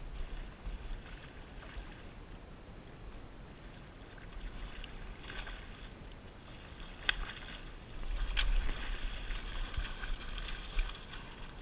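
A hooked steelhead thrashing and splashing at the water's surface as it is played in and netted, with several sudden splashes in the second half, the loudest stretch just before it is in the net.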